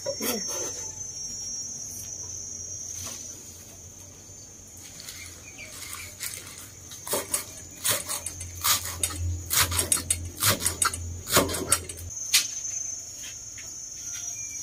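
Kitchen knife chopping leafy herbs on a board: irregular knocks of the blade striking the board, coming thick and fast from about seven seconds in.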